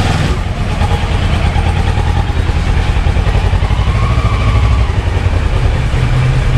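Kawasaki 650 two-cylinder motorcycle engine running steadily through its stock exhaust.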